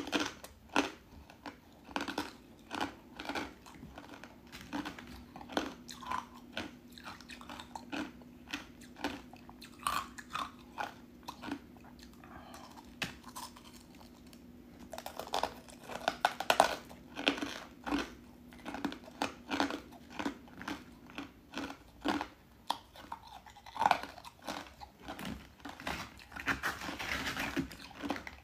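Thin, crisp pieces of ice dusted with matcha powder being bitten and chewed close to the microphone: a steady run of sharp crunches, thickest just after the middle when a fresh spoonful goes in.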